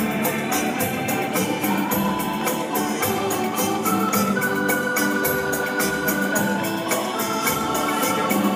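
Dance music with held, organ-like keyboard notes over a quick, steady beat.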